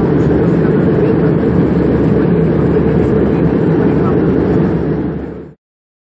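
Steady airliner cabin noise, a dense low rumble from the jet in flight, fading out and stopping about five and a half seconds in.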